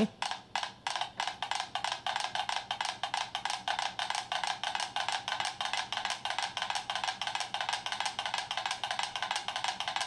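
Five mechanical pendulum metronomes ticking out of step with one another: a few clicks at first, then a dense, uneven clatter of many ticks a second. Heard from a video played over the hall's speakers, thin with no low end.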